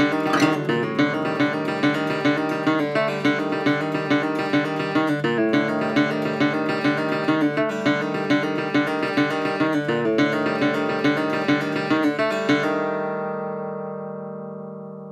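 Music: a 1930s Levin acoustic guitar in DADGAD tuning playing a steady, driving picked rhythm, then stopping about twelve seconds in on a chord left to ring and fade.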